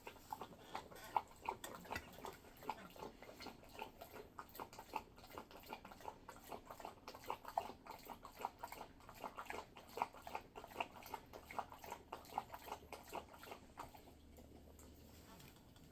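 An American Bully lapping water, a fast steady run of wet laps about four a second that stops near the end.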